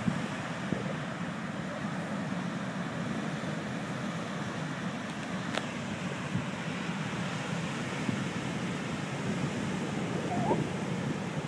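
Steady rushing of surf breaking on a sandy beach, mixed with wind buffeting the microphone.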